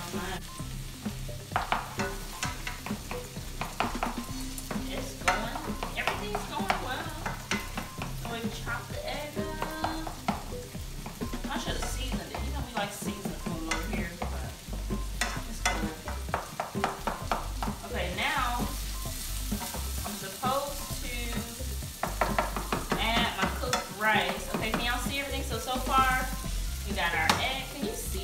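Diced mixed vegetables sizzling in a hot skillet while a wooden spatula stirs them, with many short scrapes and taps of the spatula against the pan.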